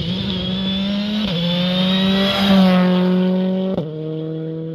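Citroën C3 R5 rally car's turbocharged four-cylinder engine running hard on a gravel stage, holding a high, nearly steady pitch with quick gear changes about a second in and again midway. The sound breaks off abruptly near the end and carries on at a lower level.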